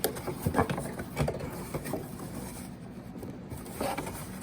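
Cardboard box and packaging being handled while a smoke alarm is unpacked: scattered light knocks, scrapes and rustling.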